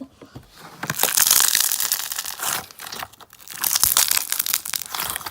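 Thinking putty folded over and squeezed in the hand, the air bubbles trapped in it popping in dense runs of crackles, in two bouts.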